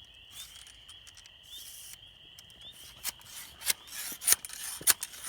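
Clicks and scraping as a shell is worked into the breech of a homemade black powder rifle, a few sharp clicks in the second half loudest. A steady high insect chirr runs underneath.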